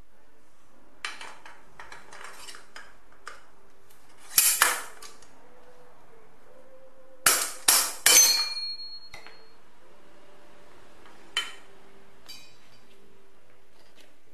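Steel bicycle headset-cup tools being handled and knocked together: light clinks, then sharp metal strikes that ring, one about four and a half seconds in, three in quick succession around seven to eight seconds, and one more near eleven seconds.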